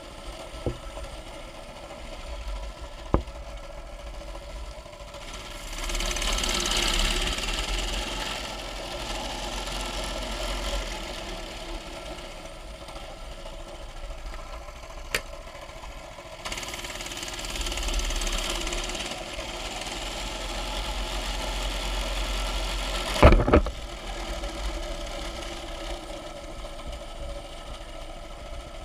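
A mini bike's small engine running as it is ridden, swelling twice as it speeds up, with a rushing hiss over it at the louder moments. A few sharp clicks, and a loud double knock about three-quarters of the way through.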